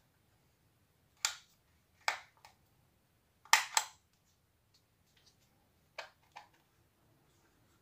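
Sharp clicks and knocks of a Celma electric drill's plastic housing being handled and turned over, about seven of them, several in quick pairs.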